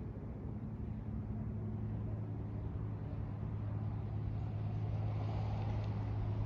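Aircraft engine noise overhead: a steady low drone that grows gradually louder as the plane approaches.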